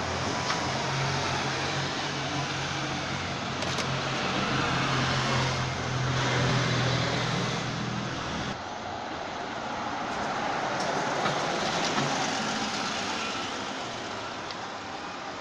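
Articulated city bus engine running as the bus pulls away, a steady low hum over street traffic noise; about eight and a half seconds in the engine hum drops out, leaving general traffic noise.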